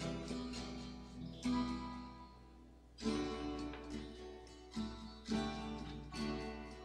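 Instrumental acoustic guitar music, with strummed chords ringing out one after another; it thins out briefly about two seconds in before a strong chord about three seconds in.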